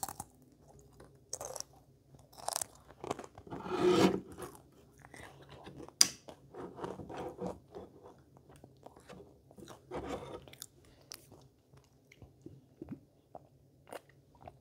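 A child chewing sweets close to the microphone: wet mouth sounds with small crunches and bites, broken by scattered sharp clicks, the loudest burst of chewing about four seconds in.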